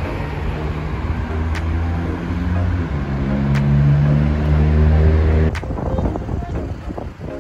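Road vehicle engine running close by at a traffic-light junction: a steady drone that steps up in pitch about three seconds in, then stops abruptly after about five and a half seconds.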